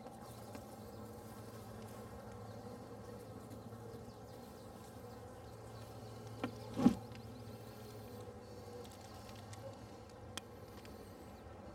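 Package honeybees in an open hive box buzzing steadily as a low hum, with one sharp knock about seven seconds in.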